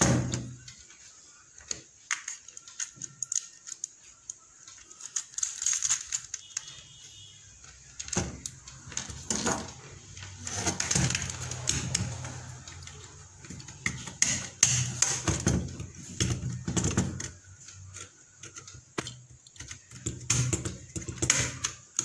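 Irregular clicks, taps and scrapes of a modular electrical switch being handled and screwed onto a plastic mounting board, with bunches of quick clicks in the middle and near the end.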